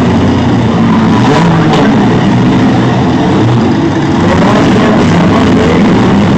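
Engines of battered demolition-derby cars running and revving as they push at each other in a dirt arena, mixed with loud music.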